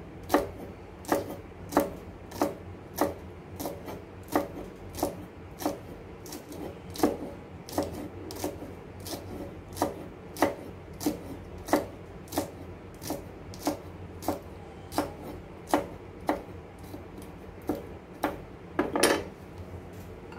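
Kitchen knife chopping yardlong beans on a thick wooden chopping board: evenly spaced knocks of the blade on the wood, about three every two seconds, with one longer, louder stroke near the end.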